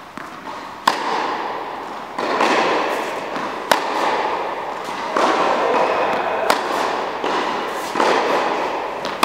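Tennis ball struck hard by a racket in a rally, four sharp cracks about three seconds apart, over a constant noisy background.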